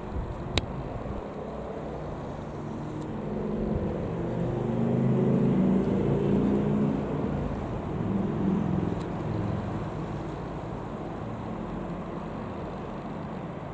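A passing engine: a low drone that swells to its loudest about five to seven seconds in, then fades away. A sharp click comes just after the start.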